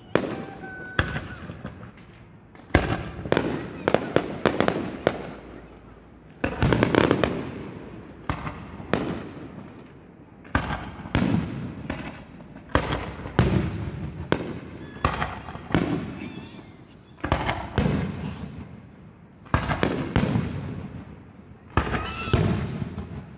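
Aerial firework shells bursting overhead in a rapid series of sharp bangs, roughly one or two a second, each fading out in a rolling echo.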